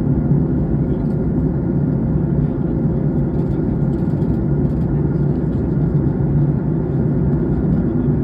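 Steady airliner cabin noise in cruise, heard from inside the cabin: an even, low rush of engines and airflow, with a faint steady hum.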